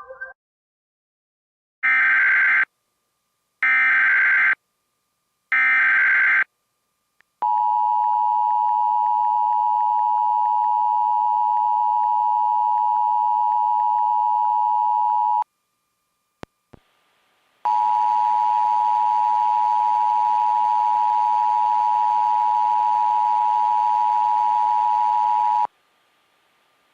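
Emergency Alert System broadcast alert: three short bursts of SAME header data tones, then the two-tone EAS attention signal held about eight seconds, a brief gap, and a second eight-second attention signal with a hiss under it.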